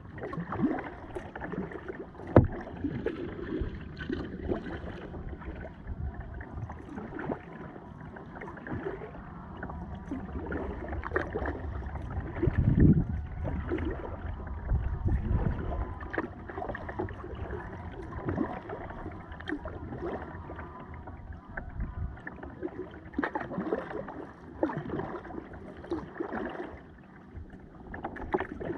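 Kayak being paddled: the paddle blades dip and splash in the river water stroke after stroke, with water gurgling around the boat. A single sharp knock comes a couple of seconds in.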